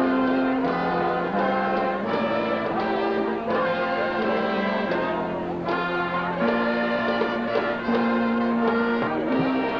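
Brass band playing a tune, with sustained trombone- and trumpet-like notes that change about every second.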